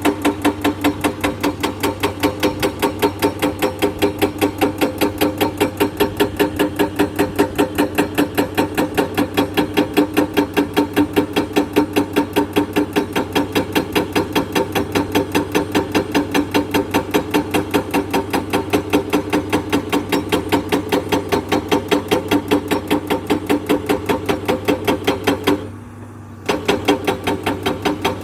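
An excavator-mounted hydraulic breaker hammering limestone with rapid, even blows, several a second, over the steady hum of the machine's engine. The hammering stops for about a second near the end, then starts again.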